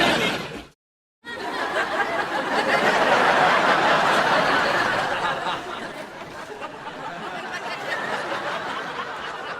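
Laugh-track audience laughter: the tail of one clip ends less than a second in, and after a short gap of silence a new burst of crowd laughter starts, swells to a peak a few seconds in, then slowly dies away.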